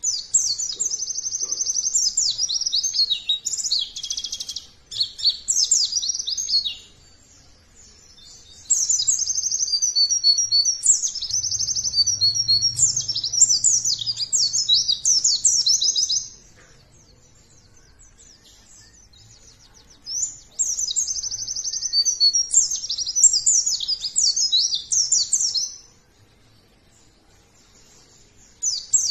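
White-eye (pleci) song: bouts of rapid, high-pitched chattering trills, each several seconds long, with short pauses between them. There are three full bouts, and a fourth begins near the end.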